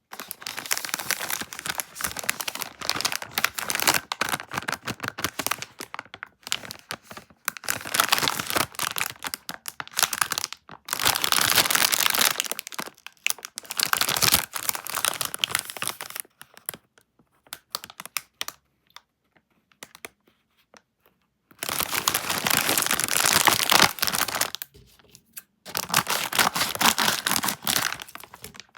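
Plastic cookie packaging crinkling and being torn open, in loud bouts of crackling a few seconds long with short pauses between them and a stretch of scattered small crackles in the middle.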